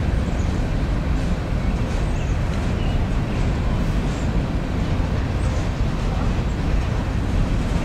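Coal train's hopper cars rolling slowly across a steel girder railroad bridge: a steady, low rumble of wheels on rail.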